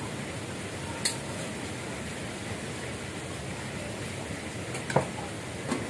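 A few light clinks of a metal utensil and ceramic bowls as noodles are served out: one about a second in and two near the end. They come over a steady hiss.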